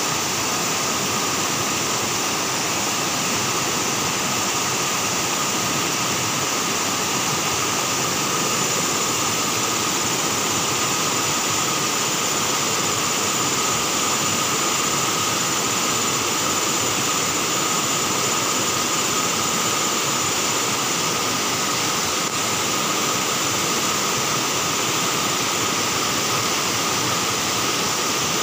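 Fast, muddy floodwater rushing over river rapids: a steady, loud rush of churning water.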